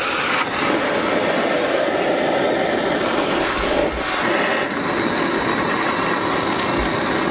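Engine of a se kang, a two-wheel farm tractor pulling a cart, running steadily while under way.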